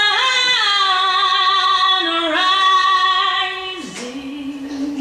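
A woman singing long held notes with little else behind her, her pitch sliding between notes twice. About four seconds in, the note ends and a lower, steadier held tone takes over.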